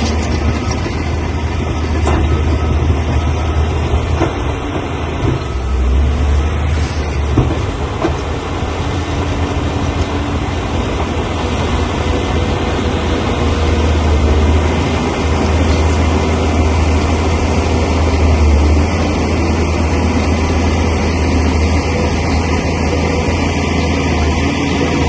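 Crawler bulldozer's heavy diesel engine running, a low rumble that swells and eases as it works, with a few knocks in the first several seconds.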